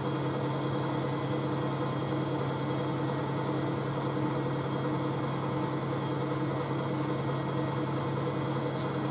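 Steady low machine hum with a few faint, thin, high whining tones above it, unchanging throughout.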